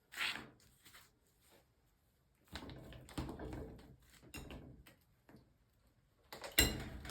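Handling noises: scuffing and rustling with small knocks, and one sharp knock near the end.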